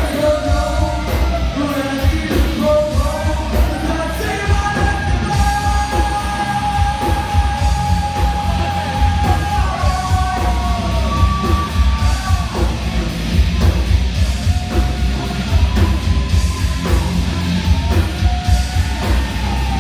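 A live rock band playing loud, with heavy bass and drums under a singer who holds long sung notes and yells.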